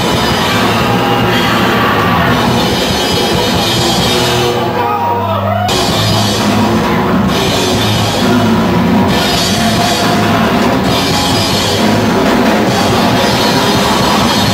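A punk band plays live and loud: distorted electric guitar, bass and drum kit. A little over four seconds in, the drums and cymbals drop out for about a second, leaving a held low note, and then the full band comes back in.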